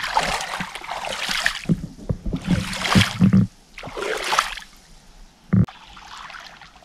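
River water splashing and sloshing in several bursts as a person bathes and moves about in it. The splashing is strongest about three seconds in and dies down over the last couple of seconds.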